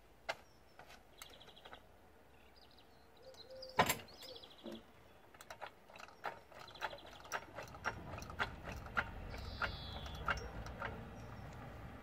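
Trolley jack being pumped by its long handle to lift the rear of a car: a run of irregular clicks and metallic knocks from the jack's pump and lifting arm, with one louder knock about four seconds in.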